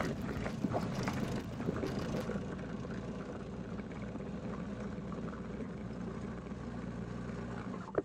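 Single-stage snowblower's small gas engine running steadily, its auger churning through snow and throwing it with a crackling rush during the first couple of seconds, then running on more evenly as the snow thins.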